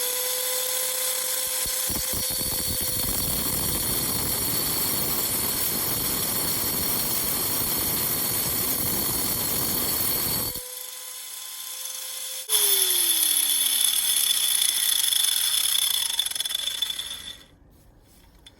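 Angle grinder's cutting wheel grinding into a quartz geode, a steady high whine under loud grinding noise. About ten seconds in the wheel comes off the stone and spins free for a couple of seconds, then bites again while the motor winds down, falling in pitch, and stops a second before the end.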